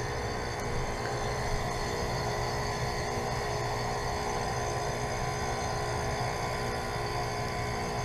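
Lennox Merit Series 3-ton heat pump outdoor unit running with its outdoor fan stopped during a defrost cycle: a steady compressor hum over a constant hiss.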